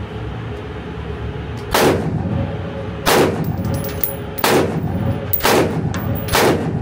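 Five semi-automatic rifle shots from an Alpen Arms STG15 AR-15 in .223 Rem, about a second apart, each echoing briefly in an indoor shooting range.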